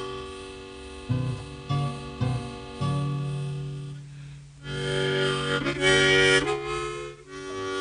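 Instrumental music from the opening of a live song recording, with no singing: sustained reed-like tones over a few plucked notes, then a held low note from about three seconds in, and a loud, bright chord swelling in the middle.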